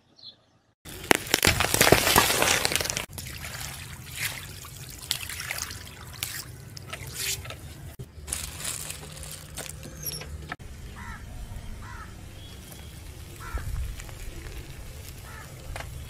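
Car tyres rolling over and crushing objects on pavement in a run of short clips: crunching, squelching and splattering, loudest a second or two in, with the sound changing abruptly several times.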